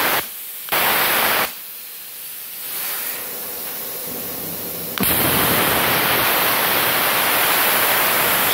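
Multipro Cut 120 GTY plasma cutter torch cutting sheet steel: a short burst of loud arc hiss about a second in, then a quieter air hiss from the torch, then the arc strikes suddenly about five seconds in and cuts with a loud, steady hiss.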